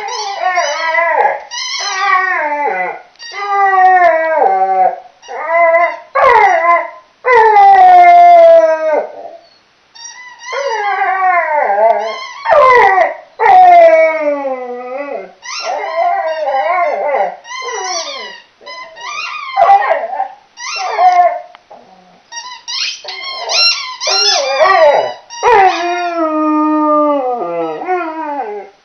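Chocolate Labrador howling and whining in a long string of wavering calls that mostly slide down in pitch, with short breaks between them, while mouthing a squeaky ball toy.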